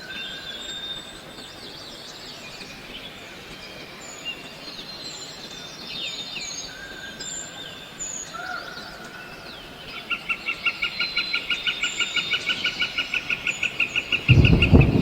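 Forest ambience of birds chirping and whistling over a steady hiss. About two-thirds of the way in, a rapid, even pulsing call of about seven notes a second joins them. Near the end a sudden loud, harsh noise breaks in.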